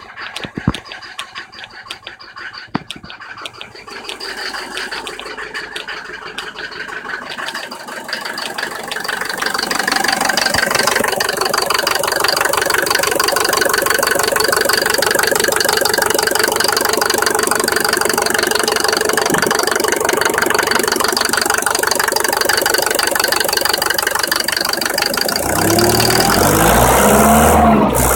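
Mercedes W124 200D's OM 601 four-cylinder diesel running with very loud diesel knock and clatter, heard as a dense fast ticking. It grows louder over the first ten seconds, and a heavy low rumble joins near the end. The owner is troubled by the knock after a cylinder-head gasket change and new injectors.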